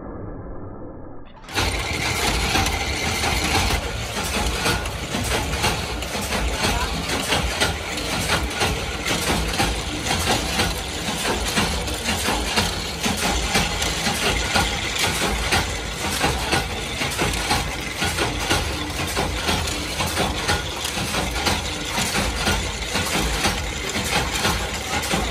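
Screw-shell thread-rolling machine running, a loud, steady, dense metallic clatter of rapid strikes. It cuts in abruptly about a second and a half in, replacing a quieter, muffled sound.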